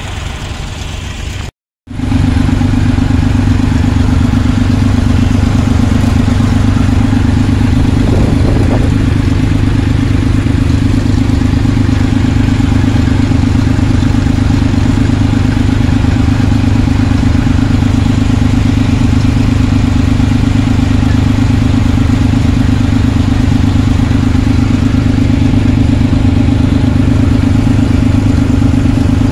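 Vintage tractor engine running steadily at constant speed close by, a loud even clatter that holds the same pitch throughout. It starts after a short break about two seconds in.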